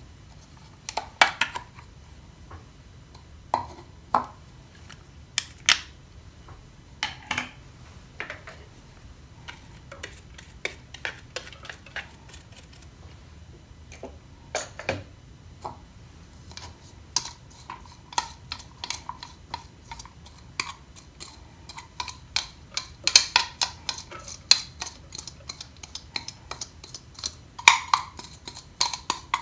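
Kitchen utensils and dishes clinking and knocking during cooking preparation: separate knocks at first, then a quicker run of small clicks and clinks from about halfway.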